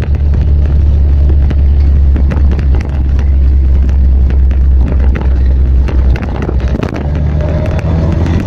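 Vespa scooter engines running steadily as a group rides along, heard from one of the scooters. The low engine note dips and shifts about seven seconds in.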